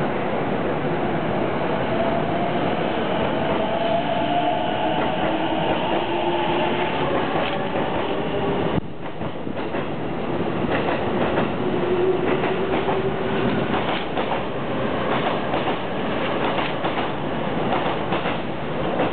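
E233-series electric train on the move, its motor whine rising slowly in pitch as it gathers speed. After a sudden cut a little under halfway through, the wheels give a run of irregular clacks over rail joints and junction points as a train pulls out.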